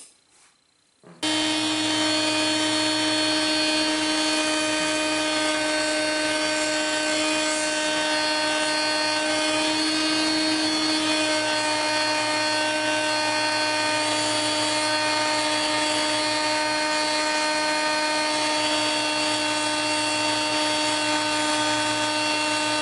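Electric grinder spinning a sanding disc inside a blast cabinet, switched on about a second in and running steadily, with a motor whine over a rushing hiss. The shop vacuum that draws the grinding dust out of the cabinet runs along with it.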